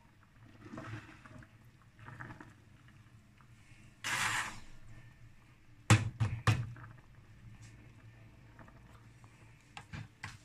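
Immersion blender being handled over a stainless steel pot of soup: a short splashy burst about four seconds in, then three sharp knocks against the pot close together about six seconds in, and a couple of lighter clicks near the end.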